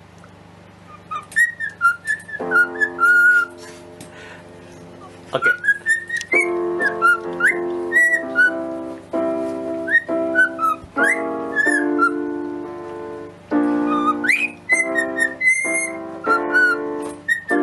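Cockatiel whistling a tune in short notes with quick upward slides, along with piano chords played beside it.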